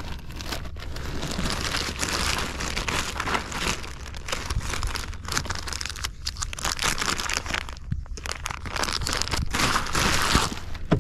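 Irregular crinkling and rustling, like plastic being handled, over a steady low rumble.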